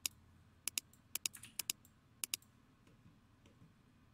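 A computer mouse clicking five times in quick pairs over about two and a half seconds, as objects are picked on screen; after that only faint room noise.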